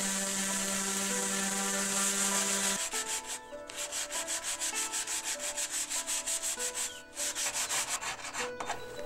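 Random orbital sander running on a pine board, a steady hum with hiss, which stops after about three seconds. Then a hand rasp scrapes the wood in rapid, even strokes, with a short pause near seven seconds.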